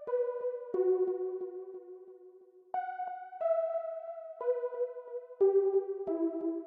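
Background music: a keyboard melody of held notes, each changing every second or so, over a light ticking beat.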